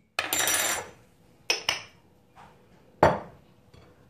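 Metal kitchen utensils clinking against a stainless steel cooking pot: a short rattle, then two quick clinks and a sharper knock about three seconds in.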